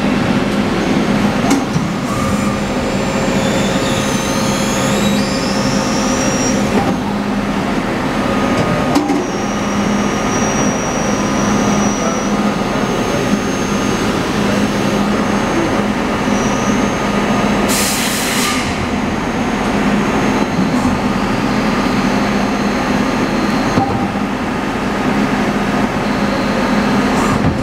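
Gildemeister Twin 42 CNC twin-spindle lathe running a machining cycle, with a steady hum and coolant spraying inside the enclosure. A few brief rising whines sound several seconds in, and a short hiss comes about eighteen seconds in.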